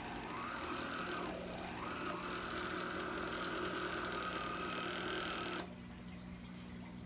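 Black and Decker 4.8-volt cordless Dustbuster vacuum motor running over carpet with a steady high whine that dips in pitch and recovers about a second and a half in. The motor cuts off suddenly with a click between five and six seconds in.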